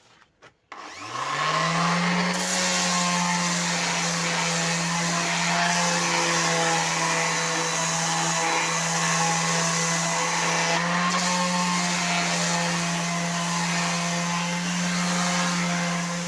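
Electric sander switched on about a second in, its motor spinning up with a rising whine and then running steadily with a hiss while sanding wood.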